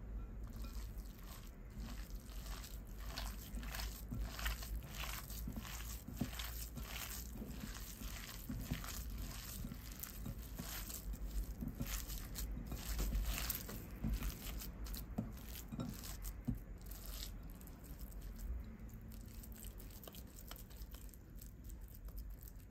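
A hand kneading and squeezing minced beef mixed with flour and chopped vegetables in a glass bowl: irregular squishing and crackling sounds, one or two a second, that thin out over the last few seconds.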